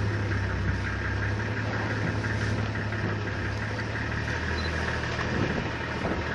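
Safari vehicle's engine running steadily, a low hum with a rough haze of noise over it.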